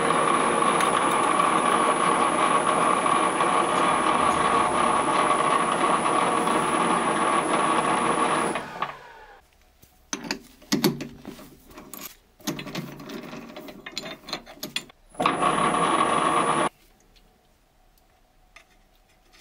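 TV-7M school lathe running steadily while a thin twist drill in its chuck bores a pilot hole through a clamped steel angle. It shuts off about nine seconds in, followed by scattered knocks and clicks, then runs again for about a second and a half before stopping.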